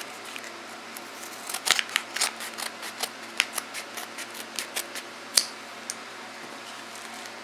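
Scissors snipping through a mailing envelope: a run of short, sharp cuts from about one and a half seconds in to about five and a half, the last one the loudest.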